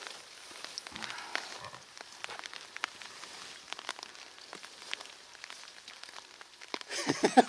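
Quiet outdoor ambience with faint, scattered, irregular ticks and rustles. Just before the end, a louder pitched sound, likely a voice, starts up.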